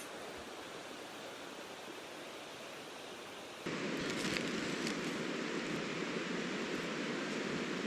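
A river flowing with a steady rushing sound, which steps up suddenly and gets louder about three and a half seconds in.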